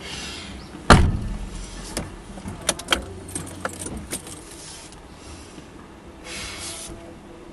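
A car door slamming shut about a second in, then keys jangling and clicking several times inside the car, and a brief rushing noise near the end.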